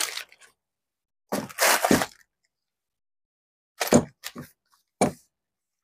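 Plastic packaging being handled and unwrapped, crinkling and rustling in three short bursts with silence between them.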